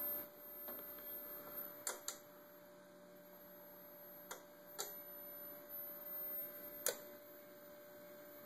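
Faint steady electrical hum from the electronics bench, a single even tone with a thin high whine above it, broken by several short faint clicks.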